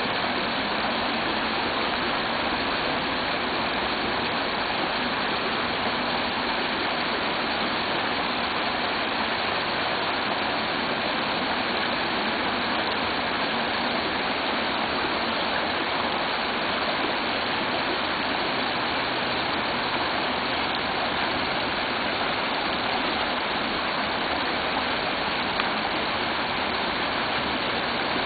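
Steady rush of a creek's water running over rocks, an even, unbroken noise.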